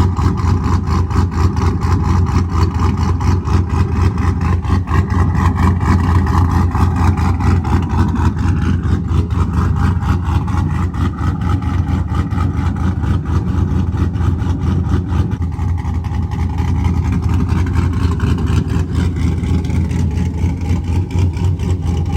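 A vehicle engine running steadily, with a strong low hum and a fast, even pulse.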